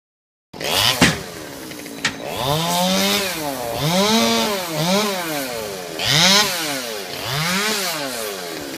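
Small Stihl chainsaw running, with two sharp clicks in the first two seconds, then revved up and down over and over, about once a second, its pitch rising and falling with each rev.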